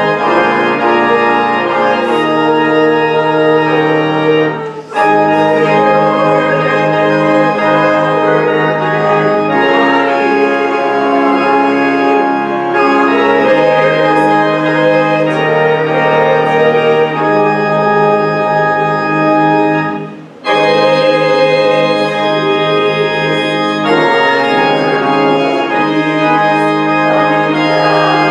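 Church organ playing held chords that change in steps, breaking off briefly twice between phrases.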